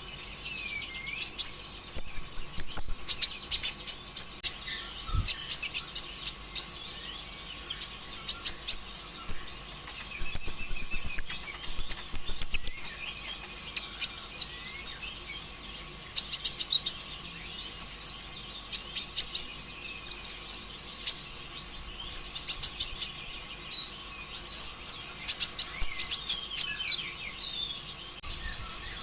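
Konin ijoan (kolibri ninja), a small sunbird, singing a fast, high chattering song of rapid chirps and trills in dense bursts, the hard-driving 'konslet' style used as a lure to get other konin singing. A faint steady hum runs underneath.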